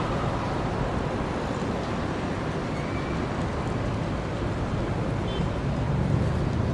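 Wind buffeting the camera microphone in an open square: a steady low rumble and hiss, a little gustier near the end.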